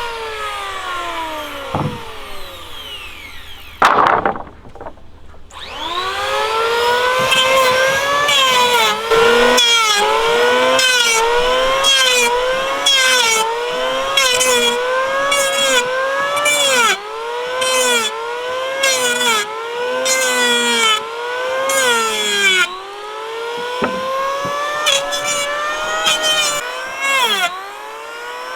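A power tool's motor working on wood. Its pitch falls over the first few seconds, there is a sharp knock about four seconds in, and then it runs again with its pitch rising and dipping about once a second, as it does under repeated load.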